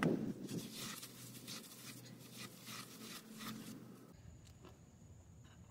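Faint scattered clicks and light rustling, as of small parts being handled, dropping to a quieter background about four seconds in.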